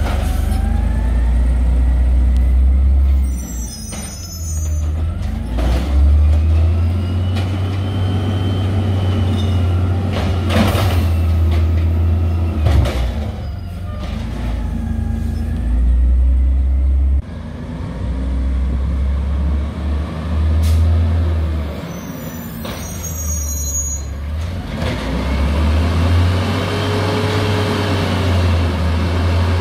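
LNG-powered Peterbilt 320 garbage truck with an Amrep automated side loader: the engine revs up and down again and again as it drives the hydraulic arm and moves between stops. Two short air-brake hisses and a few sharp knocks from the carts being handled.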